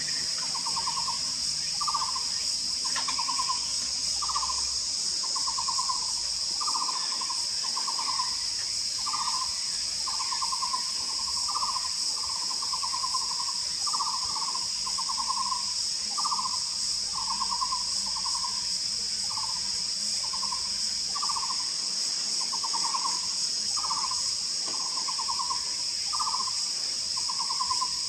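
Taiwan barbet calling: a hollow, rolled note repeated evenly over and over, about one every three-quarters of a second. A steady high buzz of insects runs underneath.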